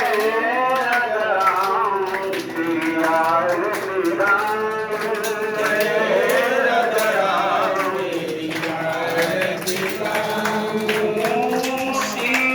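Male voice singing a Hindu aarti, a devotional hymn, in long melodic lines that slide up and down in pitch.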